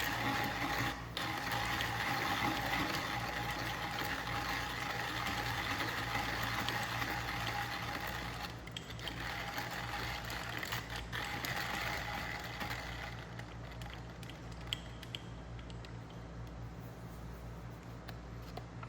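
Fiorenzato Pietro hand grinder's flat burrs crushing coffee beans as the crank is turned: a steady, dense crunching grind, briefly interrupted about a second in and again about nine seconds in. It grows sparser and quieter over the last few seconds.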